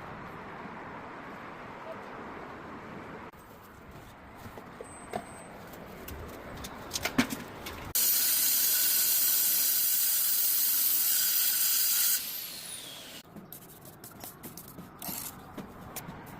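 A few light knocks, then a loud steady hiss for about four seconds that starts and stops abruptly, with a faint falling whine just after it stops.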